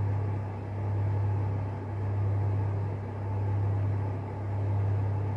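A steady low hum, swelling and easing in level about once every second and a bit.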